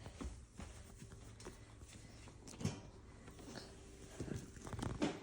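Faint handling noises: scattered light knocks and rustles, with a few louder knocks near the end.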